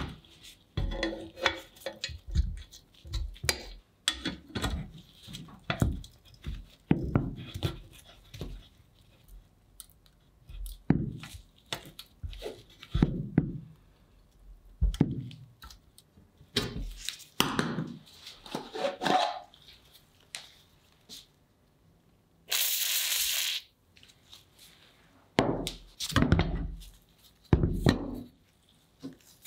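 Workshop handling sounds: a ratcheting ring spanner turning on a rusted hex bolt and the metal parts of a vintage Raadvad bread slicer knocking and clinking on a wooden workbench. About 22 seconds in, a steady hiss lasts about a second and a half.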